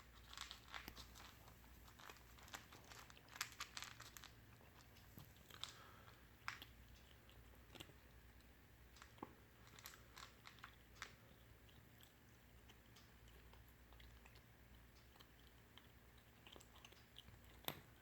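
A cat chewing dry cat food: irregular crunches, thickest in the first few seconds, with a sharp one near the end.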